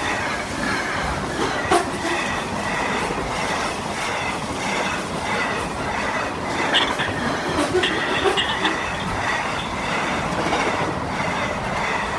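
Container wagons of a freight train rolling past close by: a steady rumble with scattered sharp clacks from the wheels and a faint high squeal.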